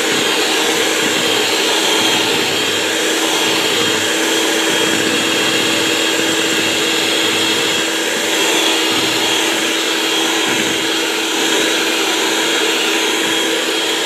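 Electric hand mixer running steadily at constant speed, its twin wire beaters churning flour, milk and water into dough in a bowl. It makes a loud, even motor hum with a steady pitch.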